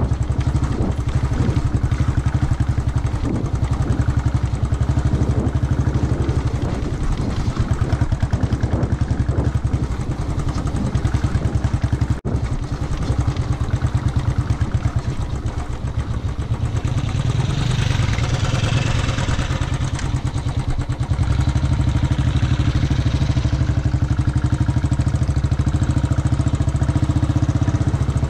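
Royal Enfield Bullet's single-cylinder engine running under way on a gravel and sand track, with a steady, rapid, even thump. About two-thirds of the way through, a louder hiss rises for several seconds.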